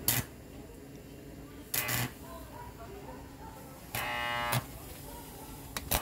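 Stick-welding arc crackling in short bursts as a steel patch plate is tack-welded onto a broken wheelbarrow wheel's hub. There are four brief tacks; the longest, about four seconds in, carries a buzzing tone.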